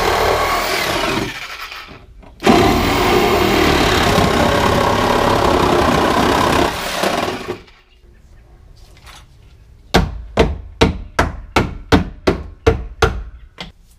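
Corded reciprocating saw cutting through a car's sheet-metal rear wheel well, running in two bursts: it winds down about a second in, starts again, and winds down after about seven seconds. Near the end, about ten sharp hammer blows on the body metal, roughly three a second.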